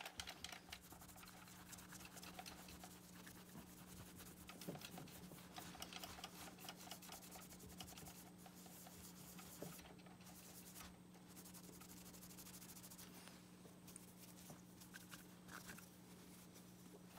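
Faint rubbing of a polishing cloth worked back and forth over a metal saxophone mouthpiece with metal polish, a soft continuous scratchy friction over a steady low hum.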